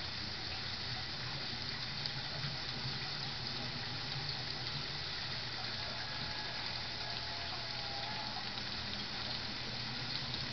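Model passenger train running along the layout track: a steady rushing whir of wheels on the rails, with a low hum underneath.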